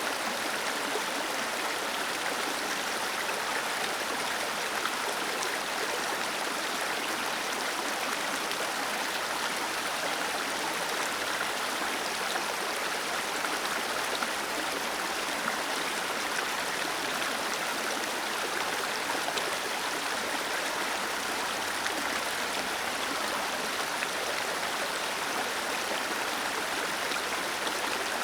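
Small waterfall: water cascading and splashing steadily in an even, hissing rush with little low rumble.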